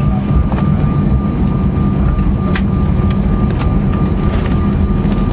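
Cabin noise of an Airbus A319 taxiing after landing: a loud, steady low rumble from the idling jet engines and the rolling airliner. A thin, steady high tone runs over it, with a few faint clicks or rattles.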